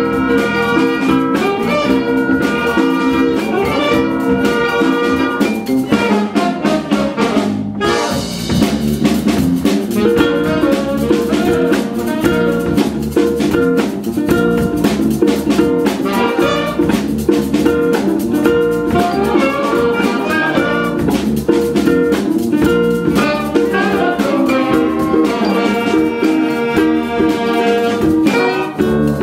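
Live jazz ensemble playing a funk tune: drum kit, horns and guitar, with a saxophone played at a microphone up front. The band drops out for a moment about eight seconds in and comes straight back in.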